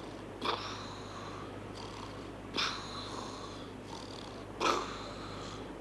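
Cartoon snoring: three loud snores about two seconds apart, each a sharp rasping intake followed by a fading high whistle.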